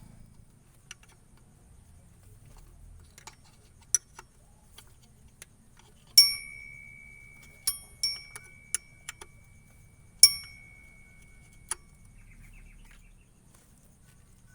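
Metal objects clinking and being struck: scattered sharp clicks, and two louder strikes about four seconds apart, each ringing on with a steady high tone for a second or two.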